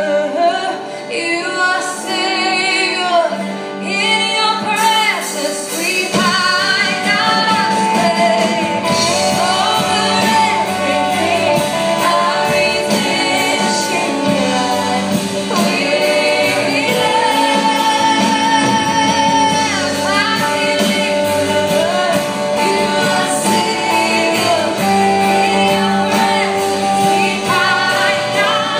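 Live worship band: a woman sings over strummed acoustic guitar and electric guitar, her held notes swaying with vibrato. A steady beat joins about six seconds in.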